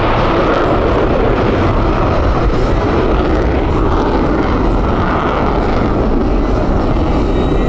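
Loud, steady jet engine noise from a U.S. Navy F-35C Lightning II's Pratt & Whitney F135 engine.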